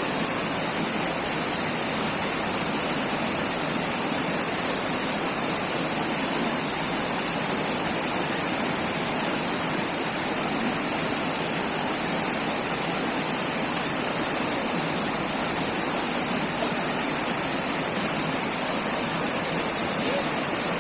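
River water flowing and rushing over rocks, a steady, even rush with no breaks.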